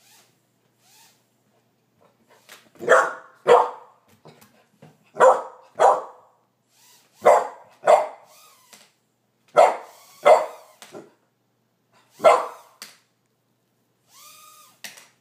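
Bearded collie puppy barking in pairs, five double barks about two seconds apart, then a short high whine near the end.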